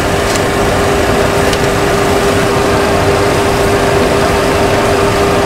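Steady Boeing 737 Classic cockpit noise on approach: an even rush of air and engine noise with a constant mid-pitched hum. A couple of faint clicks come in the first two seconds.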